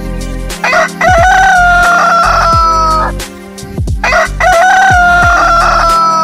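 Rooster crowing twice, each crow ending in a long held note of about two seconds, over background music with a deep, regular beat.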